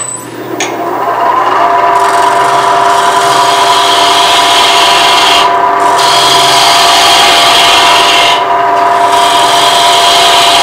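A bowl gouge cutting the tenon off the base of a wooden bowl spinning on a lathe: a steady scraping hiss of the cut, with a steady hum beneath it from about two seconds in. The cut eases off briefly twice as the tool is lifted.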